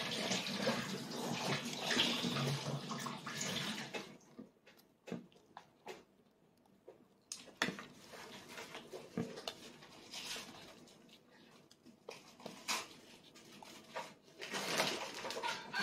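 A steady hiss for the first four seconds or so, then mostly quiet with scattered light clicks and taps of plastic training chopsticks against a plastic plate. The hiss comes back about a second before the end.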